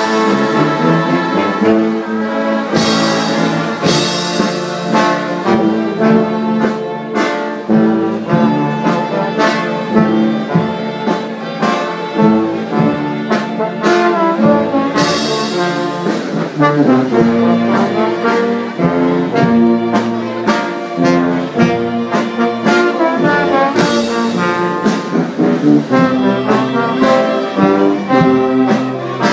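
Brass band playing a march in held, sustained chords, with a few sharp crashes along the way.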